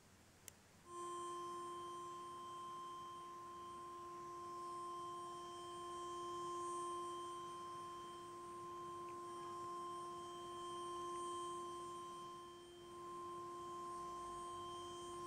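Small portable speaker playing a constant pitched tone, which starts after a click about a second in. Its loudness swells and fades slowly as it is carried around a mannequin head.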